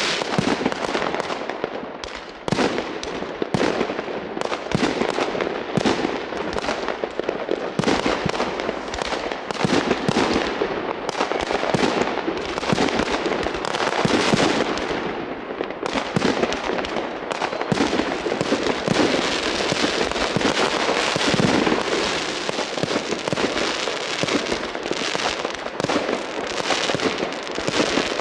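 Continuous New Year's Eve fireworks and firecrackers: a dense, unbroken barrage of overlapping bangs, pops and crackles from many rockets and bangers going off at once.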